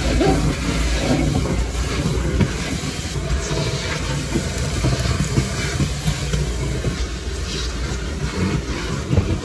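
Car-wash vacuum running steadily inside the car: a loud, even rushing hiss over a low drone, with a few small knocks.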